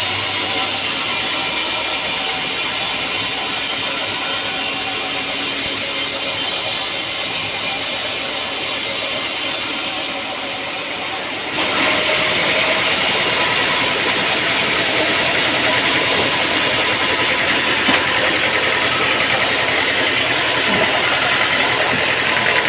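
An engine running steadily with mechanical rattle. About halfway through, the sound abruptly gets a little louder and brighter, then holds steady again.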